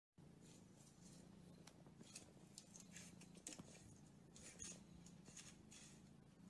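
Faint, irregular scratching and crinkling clicks, many short ones in quick succession, over a low steady hum.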